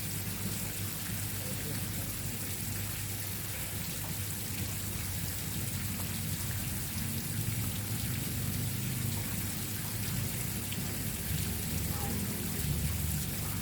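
Steady, even hiss of falling or splashing water, like rain, with a low hum underneath.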